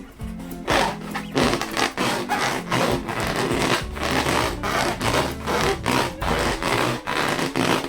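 Hands rubbing a latex balloon in quick repeated strokes, about three a second, starting about a second in, over background music.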